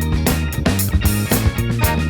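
Instrumental stretch of a funk-rock song: bass, guitar and drums playing a steady beat, without vocals.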